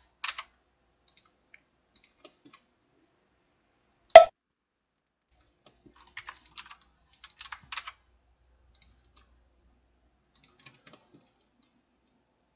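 Scattered computer keyboard keystrokes and clicks in small clusters, with one much louder sharp click about four seconds in.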